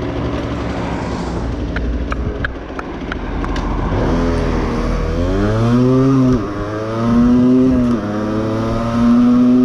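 Two-stroke Aprilia moped engine: a low rumble at first, then revving up through the gears from about four seconds in, the pitch dropping twice as it shifts up.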